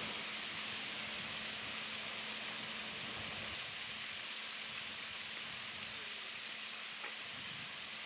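Steady outdoor hiss with a faint low hum underneath and a single small tick about seven seconds in.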